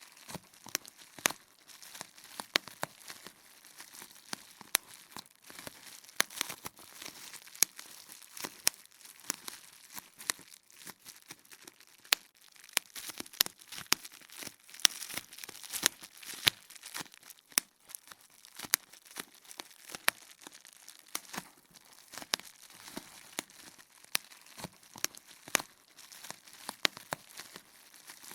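Bubble wrap popping: sharp pops at an uneven pace, often two or three in a second, with the plastic sheet crinkling between them.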